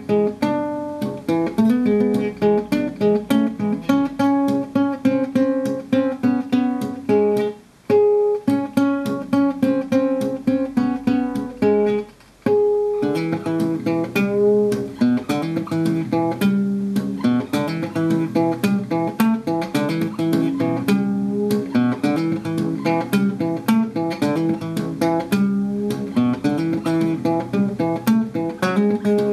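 Classical nylon-string guitar played fingerstyle, the thumb plucking bass notes under a picked melody in a steady rhythm. The playing breaks off briefly twice, about eight seconds in and again about four seconds later.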